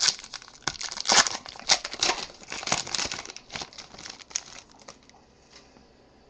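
Foil wrapper of a Panini Select football card pack being torn open and crinkled by hand as the cards are pulled out. The crinkling stops about five seconds in, leaving only a few faint clicks of the cards being handled.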